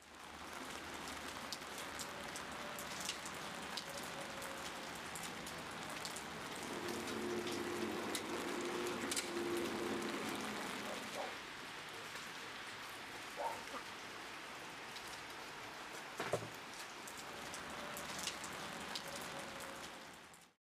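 Steady rain falling, with scattered sharp drop ticks and a single dull thump about three-quarters of the way through.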